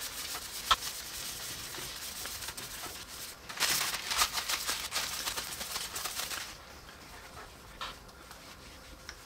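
Paper towel rubbing metal polish onto the steel Morse taper shank of a drill chuck, a dry scratchy rubbing. From about three and a half seconds in the paper's rubbing and crinkling get louder, then stop at about six and a half seconds, leaving faint wiping with a cloth.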